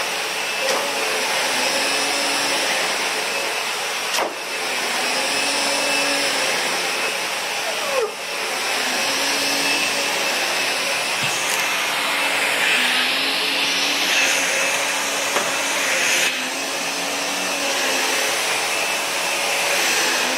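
Vacuum cleaner running steadily, with a few brief knocks about four, eight and sixteen seconds in.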